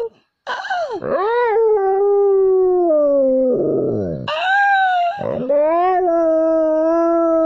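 A dog howling: about three long, wavering howls in a row, each dropping sharply in pitch before the next begins.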